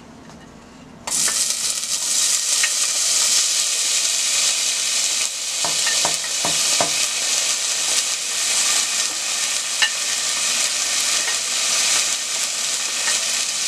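Chopped vegetables (tomato, red onion, bell pepper, scallion, thyme) hitting hot oil in a stainless steel pot, sizzling abruptly about a second in and then frying with a steady hiss. A few light clicks sound around the middle.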